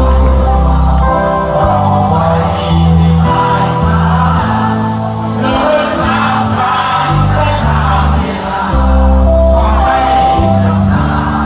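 A live rock band playing a song: a male lead vocal over acoustic guitar, keyboards, drums and a heavy bass line, loud and unbroken.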